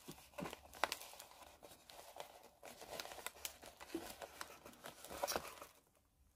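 Faint crinkling and crackling of a plastic-covered diamond painting canvas as it is handled and rolled up, in scattered small clicks that stop near the end.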